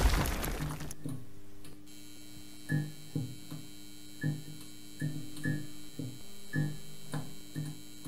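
A booming logo sting dies away in the first second, followed by quiet end-card background music: soft plucked or keyboard notes over a held chord, a note about every half second.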